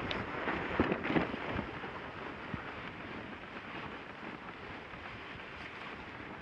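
Steady rushing noise of a dogsled running over the snow trail behind the team, with wind on the microphone; a few knocks in the first second and a half.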